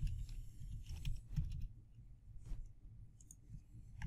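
Light computer keyboard keystrokes and mouse clicks: scattered single taps, a few at a time with short pauses, as a short word is typed into a form.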